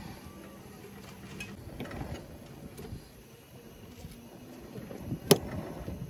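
Small handling noises of cooking: scattered light clicks and knocks of utensils and dishes, with one sharp, loud clink about five seconds in.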